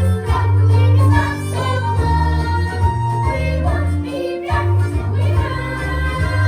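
Music from a stage musical, with held notes over a strong, loud bass line.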